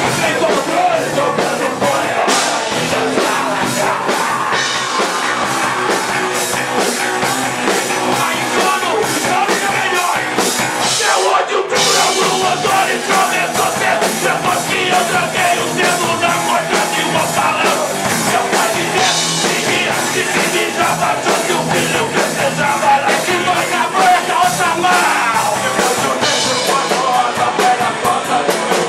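Live rock band playing a loud song, with steady drum hits under a singing voice.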